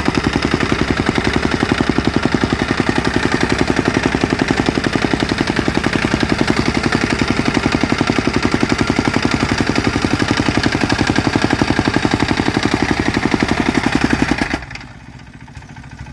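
Soil compactor's engine running at full throttle with a fast, even pounding beat. Near the end it drops abruptly to a much quieter, low running.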